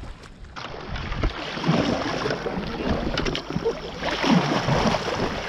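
Water rushing and splashing against a sit-on-top fishing kayak as it is paddled, with a few light knocks.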